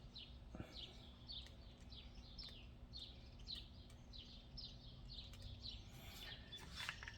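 Faint bird chirping: a short falling chirp repeated about twice a second.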